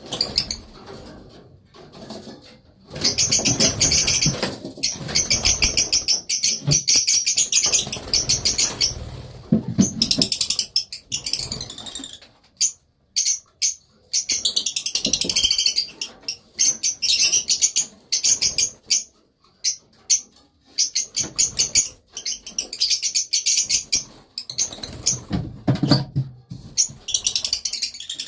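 Cage of small parrots, Fischer's lovebirds and budgerigars, chattering in long runs of fast, high, repeated chirps. Wing flutters and rustling come and go among the chirps.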